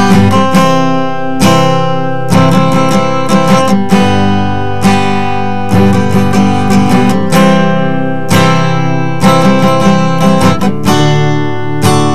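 Background music: acoustic guitar strumming chords, with a fresh strum roughly every second.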